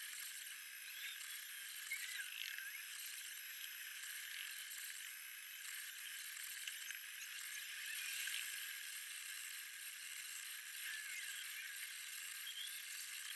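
Monoprice Select Mini 3D printer running a print: its stepper motors whine in short tones that rise and fall in pitch as the print head moves, over a steady fan hiss.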